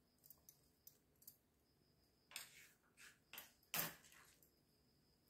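Faint handling sounds as chopped red onion is scattered onto a plate of salad: scattered soft clicks and a few short rustles, the loudest a little under four seconds in.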